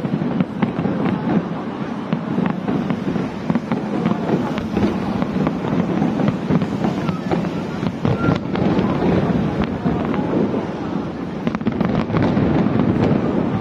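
Fireworks display: a dense, continuous crackle of many small pops and bursts with no pause.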